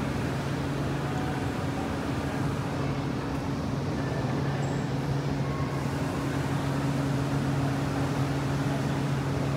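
Steady low mechanical hum of metro station equipment, with two held low tones and no change throughout.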